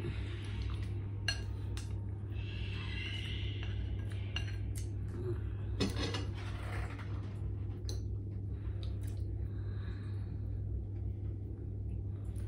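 Spoon and fork clinking and scraping against ceramic bowls, a scatter of short clicks, over a steady low hum.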